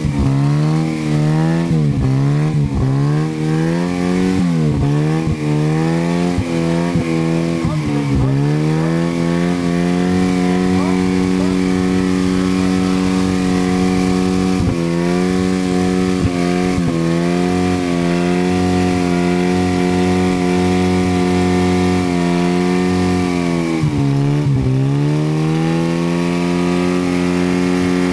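Ford Fiesta cross car's engine revved in quick blips for the first several seconds, then held at high, steady revs for about fifteen seconds. It drops briefly near the end before rising again, as the stuck car spins its wheels in mud.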